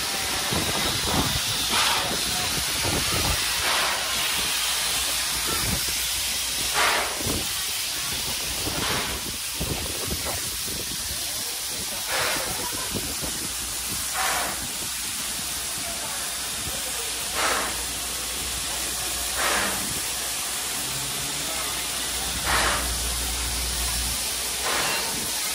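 1922-built JNR 8620-class steam locomotive No. 58654 standing at the platform, hissing steadily, with short puffs of steam recurring about every two to three seconds.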